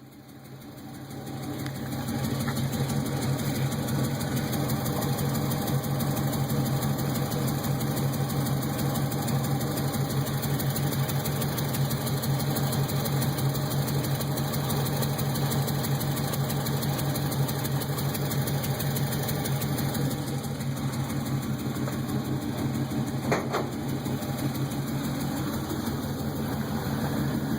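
Engine idling steadily with a fast, even pulsing from a leaking exhaust.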